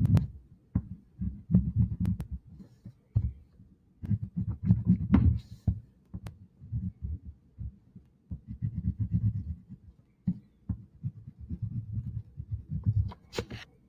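Black wax crayon rubbed back and forth on a sheet of paper on a hard tabletop, tracing an outline in short, irregular runs of heavy strokes with brief pauses. A brief sharper rustle comes near the end.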